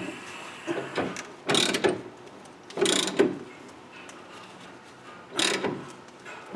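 Ratchet wrench clicking in short bursts every second or two, tightening a coil-spring compressor's threaded rod to compress a car's front coil spring.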